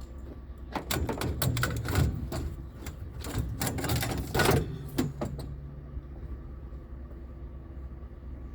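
A few seconds of clattering knocks and rattles, like objects being handled and set down, over the steady low hum of an idling vehicle engine.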